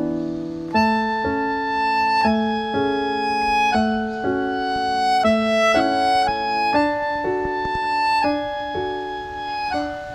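Background music: a gentle instrumental melody of sustained notes changing about twice a second, on piano and bowed-string-like tones.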